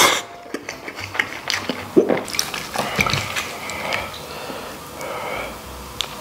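Close-up eating sounds: chewing and lip-smacking on stewed pork knuckle, with sharp smacks in the first couple of seconds. These give way to softer scraping as a knife cuts meat off the knuckle on the plate.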